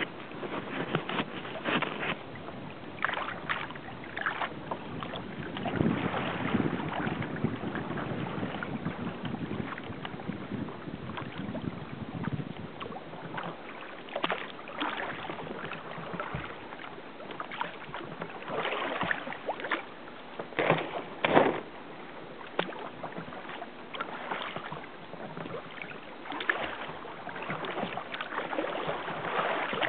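Water splashing and lapping against a moving kayak, with irregular sharper splashes every second or two.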